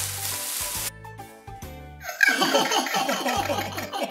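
Several children laughing together, a cartoon laughter effect that starts about halfway through and is the loudest sound, over light background music with low bass notes. A brief hissing sweep comes in the first second.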